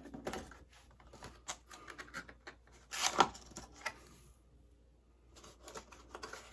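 Hands handling welder parts and packaging: scattered clicks, scrapes and rustles, with a louder cluster about three seconds in.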